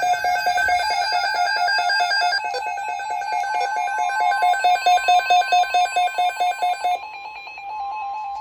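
Electronic alert beeping, about five beeps a second, with a steady higher alarm tone joining about four seconds in. The beeping stops near the seven-second mark and the steady tone carries on. This is the alarm that opens a NOAA Weather Radio severe thunderstorm watch alert.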